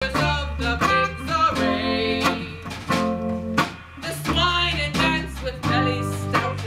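A song from a stage musical: a solo voice singing over instrumental accompaniment with sustained bass notes and a regular beat.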